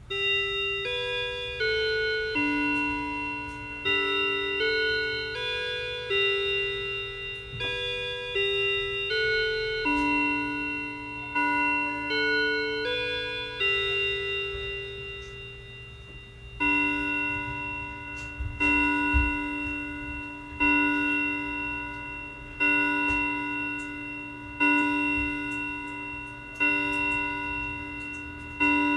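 Hermle chiming clock playing its chime melody, a run of ringing notes, then striking the hour with one repeated tone about every two seconds, seven strokes.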